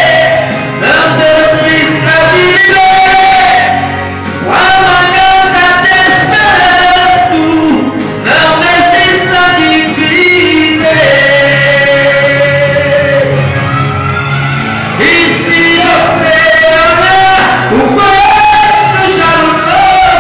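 A man singing a Portuguese gospel song through a microphone and loudspeaker, with long held notes over instrumental accompaniment.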